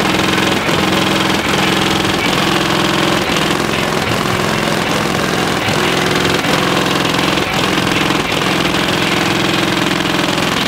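Very loud bass-heavy music from a car audio system's subwoofers in a fourth-order bandpass box, heavily distorted on the microphone, with the bass notes changing in a steady beat.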